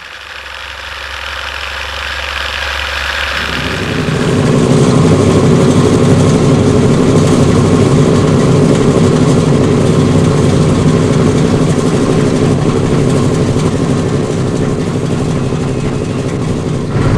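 A 1958 Cadillac Fleetwood 60 Special's V8 starting: a fainter steady whirr for about three and a half seconds, then the engine catches and runs loudly and steadily.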